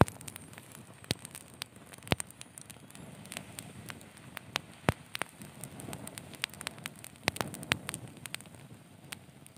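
Campfire crackling, with irregular sharp pops and snaps of varying loudness, several a second.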